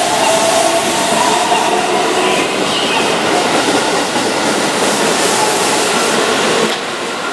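Keihan 10000 series electric train (set 10001) running past close by along a station platform, with the steady loud noise of its wheels on the rails. The noise drops about six and a half seconds in as the last car goes by.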